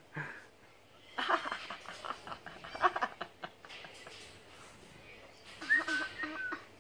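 People laughing: a burst of rapid ha-ha laughter starting about a second in and lasting a couple of seconds, then a few short voiced sounds near the end.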